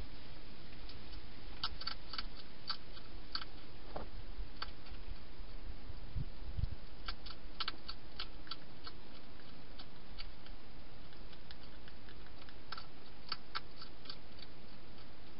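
European hedgehog eating inside a plastic feeding box: clusters of small sharp crunches and clicks as it chews, over a steady low hiss. A couple of low thumps about six seconds in.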